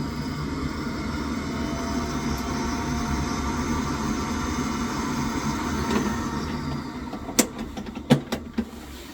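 Biasi gas boiler starting up on test after a new control board is fitted: a steady mechanical whirr with a low hum, dying away about seven seconds in, followed by several sharp clicks.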